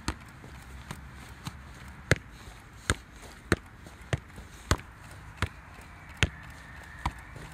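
A leather football being juggled: about ten sharp thuds of the ball striking the foot and thigh, evenly spaced at roughly one every three-quarters of a second, over a faint steady hiss.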